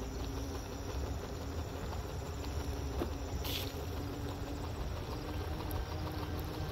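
Halo Rover hoverboard rolling along a concrete path: a steady low rumble of its wheels on the slabs, with a faint motor whine coming and going. A short hiss sounds about three and a half seconds in.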